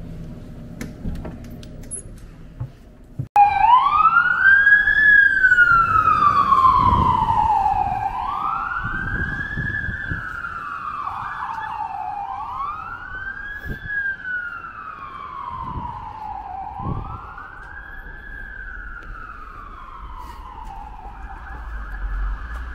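Emergency vehicle siren in wail mode, cutting in suddenly about three seconds in, each cycle sweeping up quickly and gliding down slowly, about every four seconds. It is loudest at first and then drops back over low street traffic noise.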